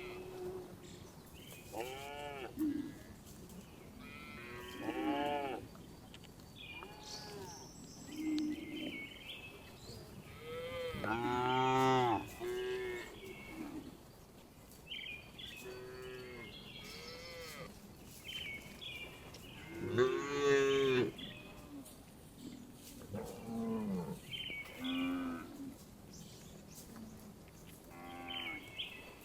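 Cows mooing again and again, a dozen or so separate calls that rise and fall in pitch, with the loudest ones about a third of the way in and again about two-thirds in. Short high chirps come between the calls.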